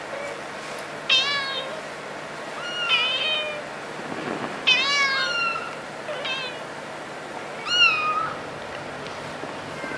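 A cat meowing about five times, short separate meows a second or two apart, each falling in pitch at the end.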